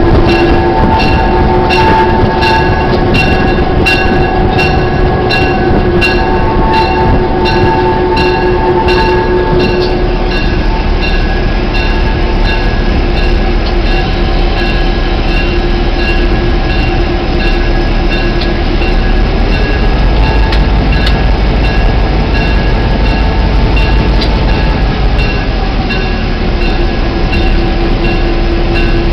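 Diesel locomotive running, heard from its cab platform as it rolls along the track: a loud, steady engine hum. For the first ten seconds or so there is also a regular clicking, about two a second, which then fades.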